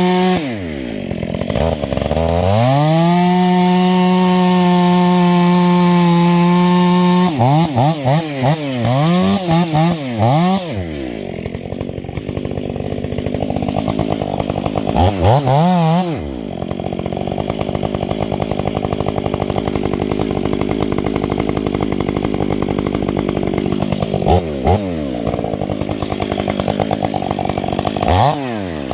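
Stihl 500i fuel-injected two-stroke chainsaw with an 8-pin sprocket, revving up and held at full throttle for about five seconds, its pitch then wavering up and down for a few seconds. It then settles to idle, with three short throttle blips.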